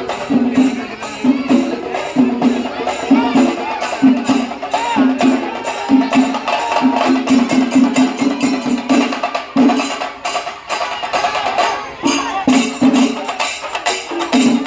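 Traditional percussion music: fast, sharp drum strokes in a steady driving rhythm, with a wavering melodic line over it.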